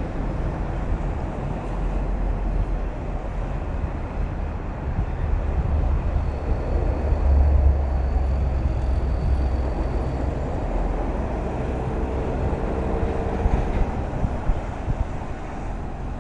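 Toll-road vehicle noise: a steady, deep rumble of engines and tyres with no breaks, and a faint whine rising out of it for a few seconds past the middle.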